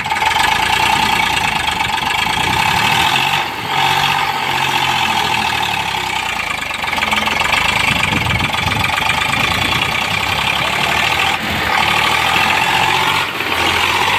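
Eicher 548 tractor's three-cylinder diesel engine running steadily with the tractor bogged down in mud, with a few brief dips in level.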